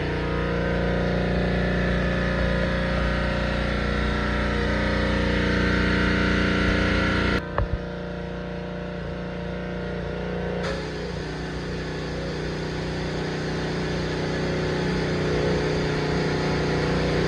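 Pressure washer running steadily, a motor drone together with the spray of the water jet on a fibreglass boat floor. The sound drops suddenly about seven seconds in and comes back up about three seconds later.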